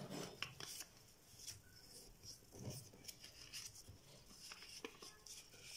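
Faint rustling and scraping of a sheet of paper being folded in half by hand and its crease pressed down, in short irregular strokes.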